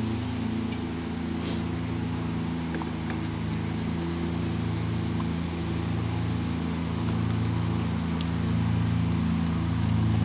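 An engine idling with a steady low hum whose lowest note swells and eases about once a second.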